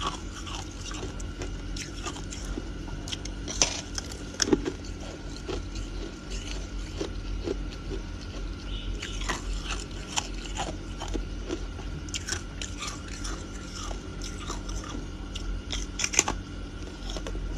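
Thin ice being bitten and chewed close to the microphone: a string of sharp crunches and crackles, loudest about four and a half seconds in and again near the end, over a faint steady hum.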